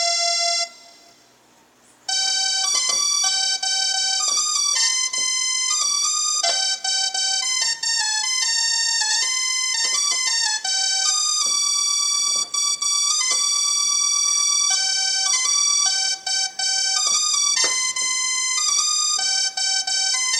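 Electronic musical bus horn playing a melody in held notes that start and stop sharply, with a short break about a second in.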